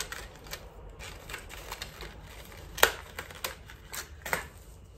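A packet of disposable spoolie brushes (mascara wands) being opened by hand and one brush taken out: an irregular run of small clicks and crinkles, with one sharper click a little under three seconds in.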